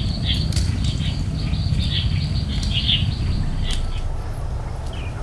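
Birds chirping in many short calls over a steady low rumble, with a few sharp clicks; the chirping thins out near the end.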